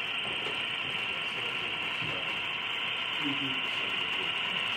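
Model train rolling past, a locomotive and one tank car, giving a steady hissing whir of the motor and the wheels on the track.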